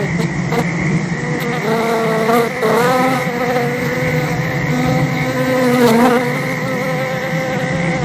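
Sound-designed soundtrack drone: a steady high tone over a low hum, joined about a second and a half in by a buzzing tone that wavers in pitch, dipping twice.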